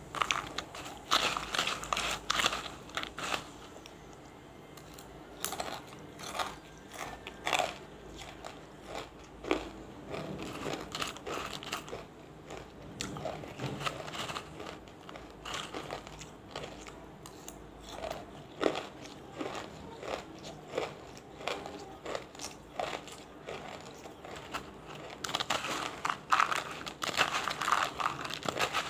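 Close-up crunching and chewing of banslochan pieces, a mix of soft wetted small pieces and dry big ones. Dense, rapid crunches come in the first few seconds and again near the end, with sparser crunches and chewing between.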